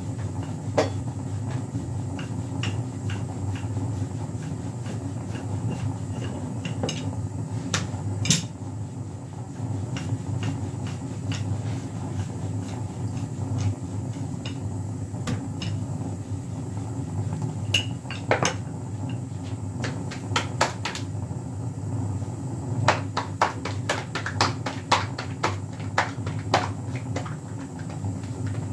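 Steady low rumble of gas burners heating an iron tawa and a steel pot, with scattered sharp metallic clicks and clinks, coming in quick succession near the end.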